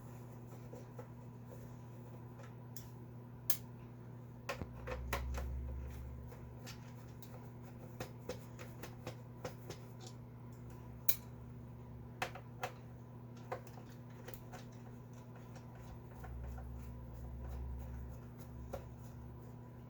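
Scattered sharp plastic clicks and handling knocks as a Commodore 64's plastic case is worked open, with two longer low rumbles of the case being moved or handled, about five seconds in and again near the end.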